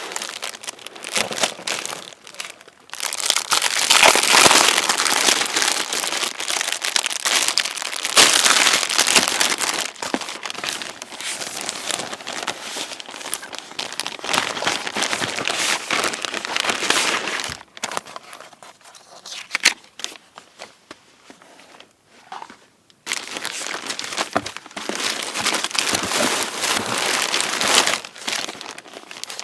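Crinkling and rustling of crinkly material being handled, in irregular spells of a few seconds with short pauses between them.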